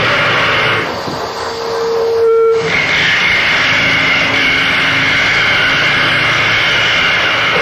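Loud live harsh noise music: a dense, continuous wall of amplified noise with steady whining tones in it. It thins briefly about a second in, with a short clear tone standing out, then comes back at full strength.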